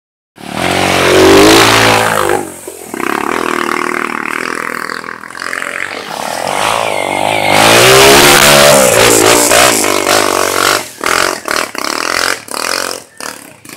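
Off-road dirt bike engine revving hard as it climbs a steep dirt trail, its pitch rising and falling with the throttle. From about two-thirds of the way in, the revs come in short, choppy stabs.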